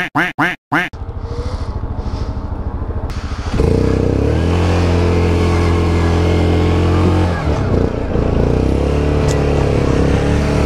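Yamaha Grizzly 700 ATV's single-cylinder engine pulling hard at steady revs under load on a steep uphill climb. It grows much louder a few seconds in and dips briefly about two-thirds of the way through. The sound cuts out several times in the first second.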